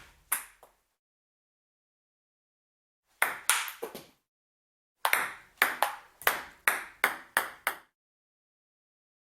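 Table tennis ball sharply clicking off paddle and table: a quick cluster of about four hits, then a steady run of about nine evenly spaced hits, like a rally.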